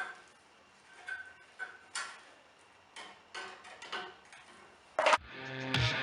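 Scattered light clicks and snips, about eight over several seconds, of hand tools working on NMD cable as its outer jacket is cut and stripped off. Music fades in near the end.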